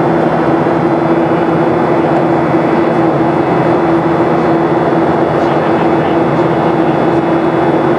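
Steady cabin noise inside a Boeing 737-700 in flight: the CFM56-7B turbofans' drone and rushing airflow, with a steady low hum running through it.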